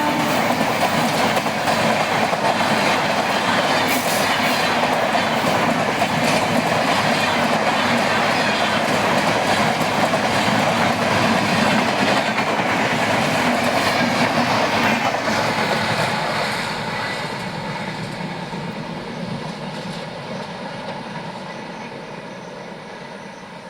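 Indian Railways train running through at speed, its wheels clattering over the rail joints in a loud, steady rush that starts to fade about 16 seconds in as the train moves away.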